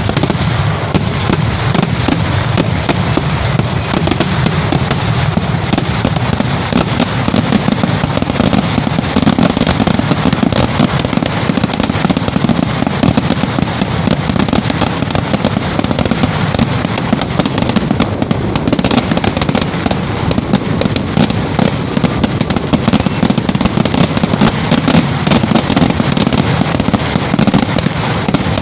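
A Kerala temple-festival fireworks barrage (vedikkettu): firecrackers exploding in rapid succession, so close together that the bangs merge into one continuous loud din.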